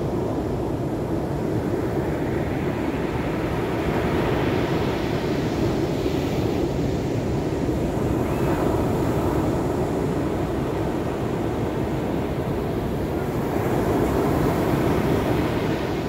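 Pacific Ocean surf breaking and washing up a beach: a steady rush of waves that swells as breakers crash about four seconds in and again near the end.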